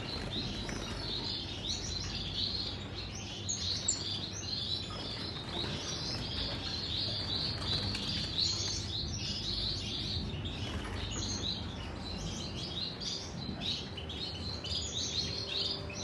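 Many small caged finches chirping at once: a busy chorus of short, high, overlapping chirps and calls that never lets up.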